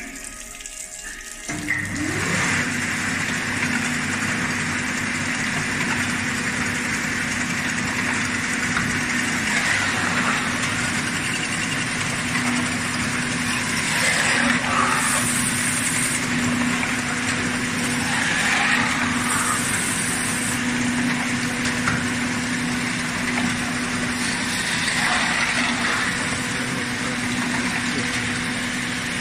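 Baader 189 cod filleting machine running: a steady mechanical hum under a loud hiss, which comes up sharply about two seconds in and swells a few times as it runs.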